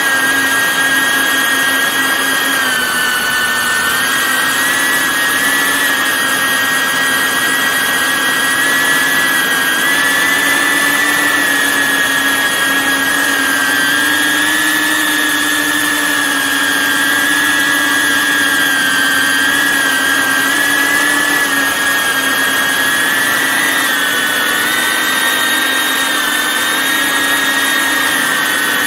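Camera drone's propellers and motors whining steadily in flight, the pitch dipping and rising a little now and then as it manoeuvres.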